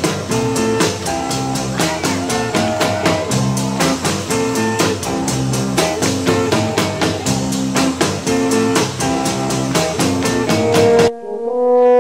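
Background music from a live rock-and-roll recording with a steady drum beat. Near the end it cuts off suddenly and sustained brass notes take over.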